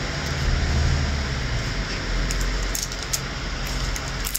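Rustling and handling noise of a diamond painting canvas and its packaging, with a few sharp crackles about two to three seconds in and again near the end, over a steady low hum.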